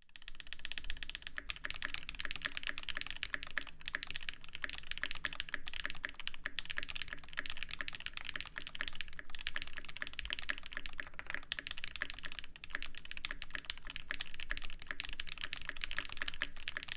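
Fast continuous typing on a Viendi 8L mechanical keyboard: a dense run of clacky keystrokes.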